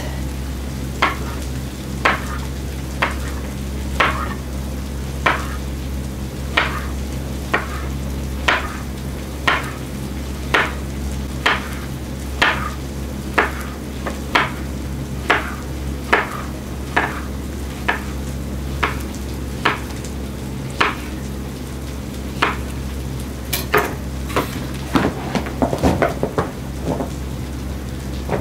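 Kitchen knife slicing zucchini into rounds on a wooden cutting surface, the blade knocking the board about once a second. Near the end comes a quicker clatter of small knocks as the slices are gathered up, with a faint sizzle of margarine and frying chicken in the pans underneath.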